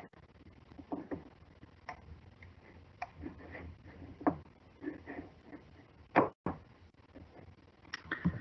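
A few irregular small clicks and soft knocks picked up by a computer microphone, the sharpest about six seconds in, followed by a brief cut-out of the sound.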